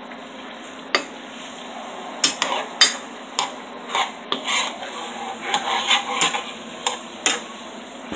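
A cooking utensil scraping and knocking against a frying pan as ground beef is stirred and broken up. The clicks and scrapes come irregularly, one or two a second, and are thickest in the second half.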